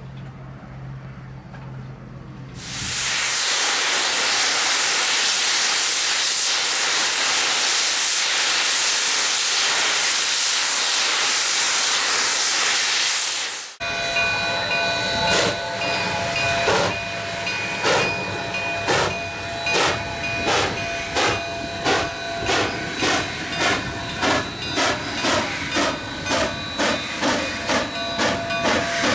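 Narrow-gauge steam locomotive letting off a loud, steady hiss of steam for about ten seconds. The hiss stops abruptly, and the exhaust starts chuffing in a regular beat that quickens from about one beat a second to about two as the locomotive gets under way.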